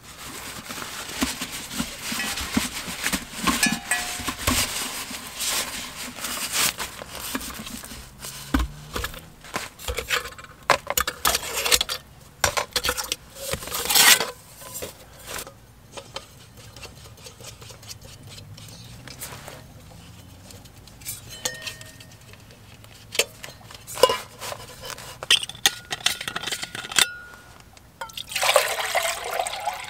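A compact gas stove cook system being unpacked: rustling of its fabric stuff sack, with scattered clicks and clinks of the metal pot and stove parts. Near the end, water is poured from a bottle into the pot.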